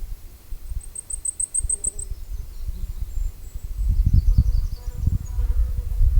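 Wind buffeting the microphone in gusts, stronger in the second half, with a fly or bee buzzing close by. About a second in, a quick run of high, thin notes.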